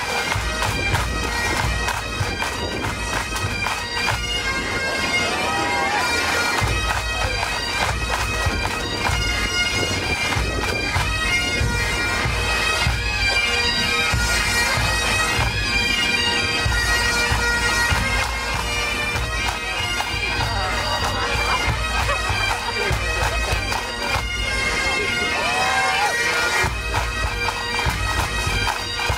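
Massed pipe band playing, the bagpipes' steady drones held under the chanter melody.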